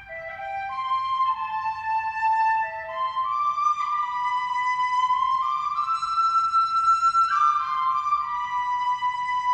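Instrumental music: several held, pitched notes sounding together and moving from note to note every half second or so.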